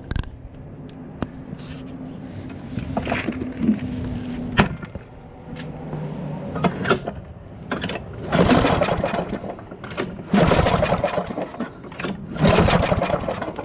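Lawn-Boy push mower's OHV engine being cranked three times with the recoil pull cord in the second half, each pull a short rhythmic chugging burst, without the engine catching, while an inline spark tester checks for spark.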